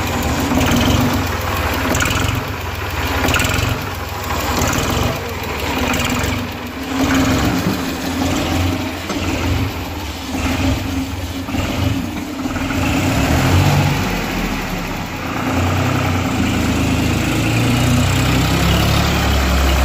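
Ford 3000 tractor's three-cylinder engine running as the tractor is driven, with a heavier low rumble in the last several seconds. The engine was only just started after the rebuild and has not yet run in; the owner expects its sound to settle.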